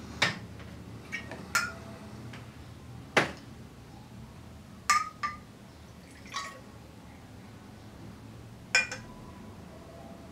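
Lab glassware clinking as a graduated cylinder and small glass jars are handled and set down on a glass benchtop: about eight sharp clinks at irregular intervals, a few ringing briefly.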